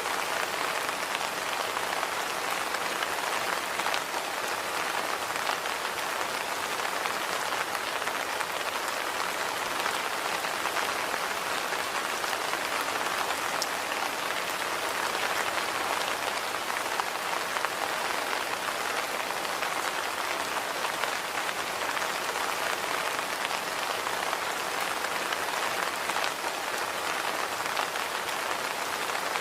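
Steady rain falling on a walkway, a dense even patter of raindrops.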